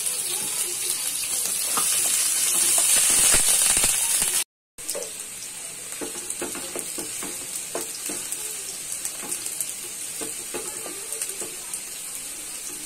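Sliced onions sizzling in hot oil in a pan, stirred with a wooden spatula that scrapes and taps against the pan. The sizzle is louder for the first four seconds, cuts out briefly about four and a half seconds in, then goes on quieter with frequent spatula scrapes.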